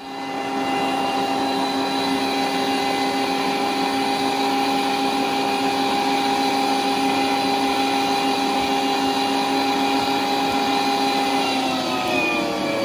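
Electric meat grinder switching on and running steadily with a motor whine, grinding wilted fireweed leaves for Ivan-chai tea. Its pitch dips near the end as leaves are pushed into the feed.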